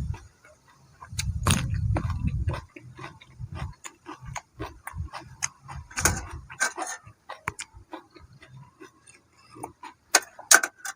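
Close-up chewing and crunching of crunchy food, a run of irregular crackly clicks. A gust of wind rumbles on the microphone about a second in.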